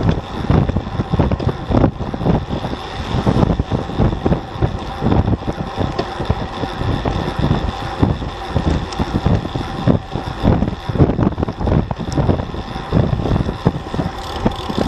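Wind buffeting the microphone of a bike-mounted action camera while riding a road bike at speed: a loud, gusty rumble that flutters continuously.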